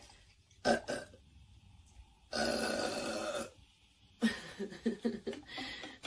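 A woman burps once, long and loud, about two seconds in, the belch held for over a second. A shorter sharp sound comes just before a second in, and softer broken sounds follow near the end.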